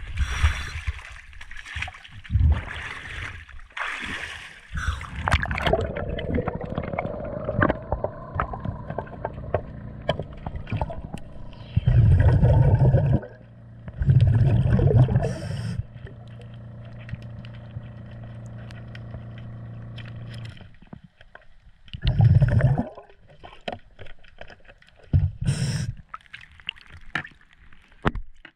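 Underwater work on a boat's trim tab: scattered clicks and scrapes of a screwdriver taking off an old clamshell zinc anode, broken by several loud gurgling gushes of a diver's exhaled bubbles. A steady low hum runs through the middle.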